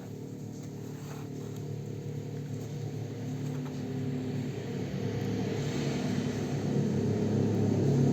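Background music: sustained low held chords, like a drone, swelling steadily louder.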